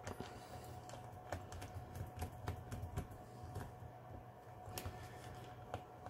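Small, irregular clicks and ticks of a small screwdriver turning the screws that hold a Lenovo ThinkPad T440's internal battery in its chassis, over a faint steady hum.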